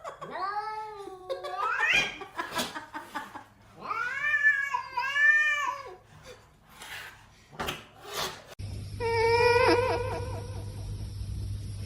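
A domestic cat yowling in long, drawn-out meows that bend up and down in pitch, three calls in the first six seconds. About two-thirds of the way in, a steady hum starts suddenly under another wavering call.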